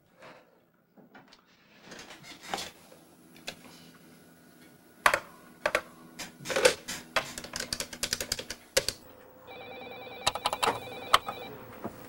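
Rapid, uneven clatter of typing on a computer keyboard, then near the end a telephone rings once with a trilling ring lasting about two seconds.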